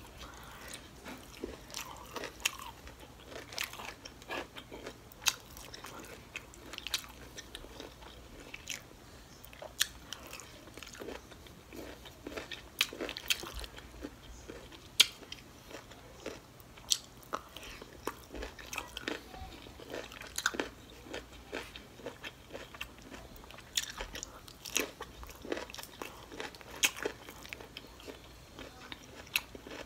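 Close-miked chewing and biting of crunchy broccoli from a shrimp-and-broccoli takeout dish: irregular crunches and wet mouth clicks.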